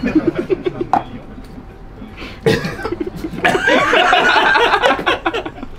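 Men laughing in quick rhythmic pulses, getting louder about halfway through.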